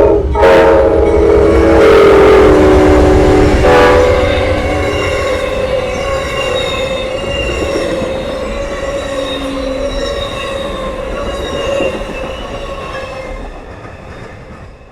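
Amtrak passenger train passing close by, its horn blowing loudly and dropping in pitch as it goes past. The train runs on and slowly fades away.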